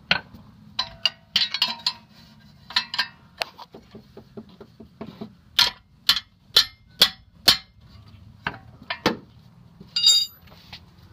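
Hammer tapping metal parts of a car's rear disc brake assembly to seat them snugly: about a dozen sharp, uneven strikes, some in quick runs. About ten seconds in comes a short metallic ringing clink.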